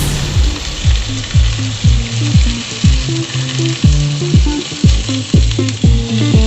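Food sizzling and frying in a hot pan, a steady hiss, over background music with a steady beat of about two kicks a second and a held bass line.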